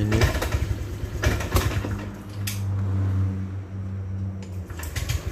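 Honda Vario 125 scooter's single-cylinder fuel-injected engine sputtering unevenly as the throttle is opened, then dying out shortly before the end. This is the fault being shown: the engine stumbles (brebet) and cuts out under throttle.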